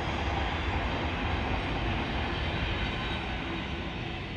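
A passing train: a steady rumble and rush that eases off slightly near the end.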